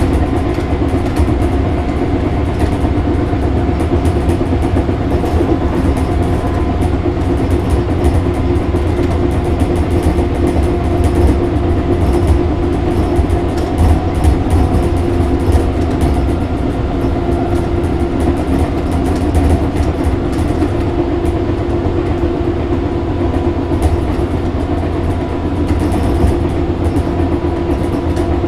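Tobu 6050-series electric train running at a steady speed, heard from inside the car behind the driver's cab. Its steady hum from the TM-63 traction motors and gearing holds one pitch under the rumble of the rails, with the car's loose doors rattling and clicking.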